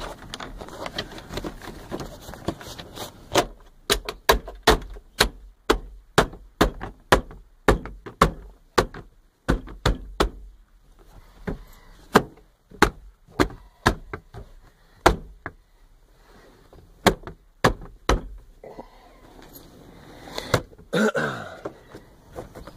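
Interior trim panel of a Toyota Tacoma cab being knocked into its retaining clips: a long run of sharp, separate knocks, about one or two a second, in an uneven rhythm.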